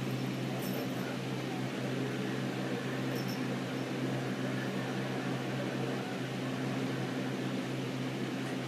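Steady low mechanical hum of a running appliance or fan in a room, with two faint high clicks about half a second and three seconds in.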